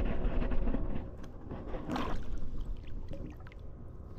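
Water splashing and gurgling at the side of a kayak as a small snapper is released back into the water, loudest in the first second, followed by scattered light knocks.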